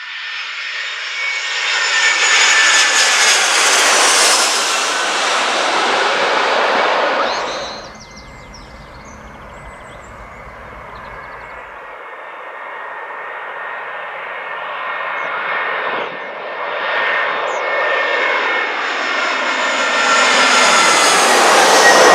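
An easyJet Airbus A319 on final approach passes low overhead: its jet engine noise swells to loud with a high whine falling in pitch, then cuts off abruptly about eight seconds in. A second airliner on approach follows, its engine whine growing steadily louder.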